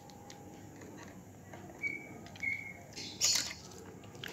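Small metal clicks and a brief scrape-and-clink about three seconds in, from a screwdriver working on the presser-foot and plate screws of an old Brother single-needle industrial sewing machine. Two short high chirps come just before the scrape.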